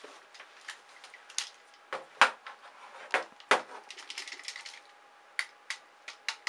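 Toy revolver being handled: an irregular run of clicks with a few sharper knocks, the loudest about two and three and a half seconds in.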